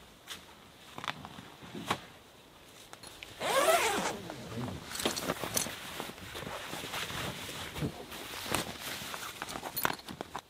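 Long zipper on a canvas tent storage bag pulled open in one drawn-out stroke, about three and a half seconds in. Around it, heavy canvas and nylon webbing straps rustle as the bag is handled, with a few sharp clicks.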